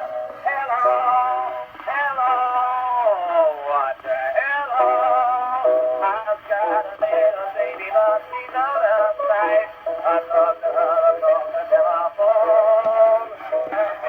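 Music: a man singing sustained, wavering notes with accompaniment, the sound thin and cut off above the upper middle range.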